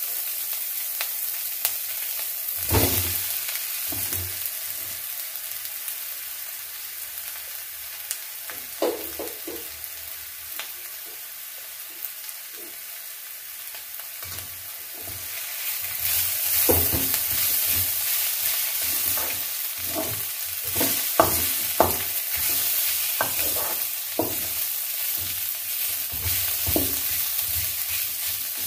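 Onion and potato masala sizzling as it fries in a metal kadai, with a wooden spatula scraping and knocking against the pan as it is stirred. The sizzle and knocks get louder and more frequent from about halfway through.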